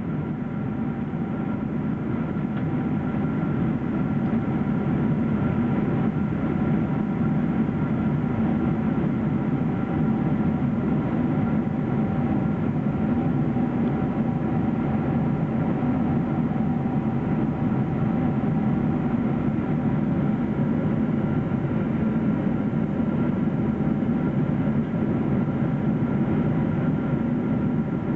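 Steady in-flight cabin noise of a Boeing 777-300ER at cruise: a low, even roar of airflow and its GE90 engines, with a few faint steady tones above it. It grows a little louder over the first few seconds, then holds.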